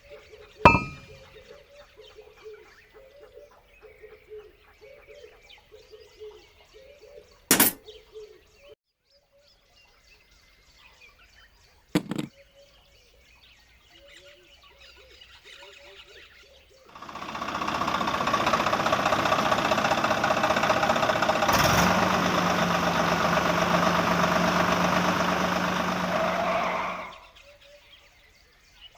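A small electric motor, of the kind that drives a DIY toy tractor or mini mixer, runs with a loud steady buzz for about ten seconds in the second half and then stops. Before it there are a few sharp clicks and faint bird chirps.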